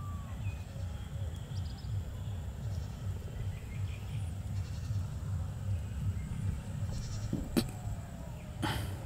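Open-field ambience: a steady low rumble with faint high bird chirps, a sharp click about seven and a half seconds in and a short burst of noise near the end.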